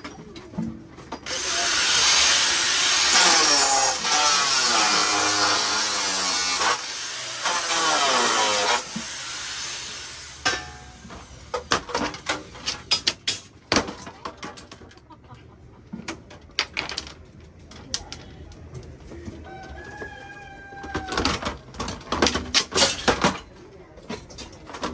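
Harsh, continuous scrubbing or scraping on the steel body of a gas stove for about nine seconds, then a run of sharp metal clanks and knocks as the stove frame is handled.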